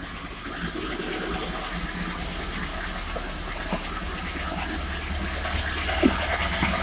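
VAZ 2101 running in second gear with one rear wheel jacked up and spinning freely through the rear axle: a steady rushing drivetrain and wheel noise with a low hum, slowly growing louder. A single short knock about six seconds in.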